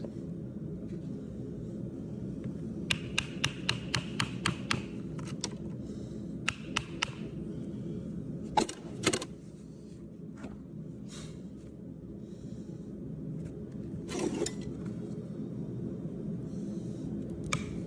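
Hoof knife paring the sole of a horse's hoof: short scraping cuts and sharp clicks, a quick run of them about three seconds in, then single ones spaced out, over a steady low hum.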